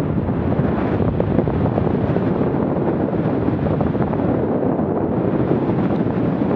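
Steady wind rushing over the camera microphone of a bicycle descending at about 22 to 26 mph.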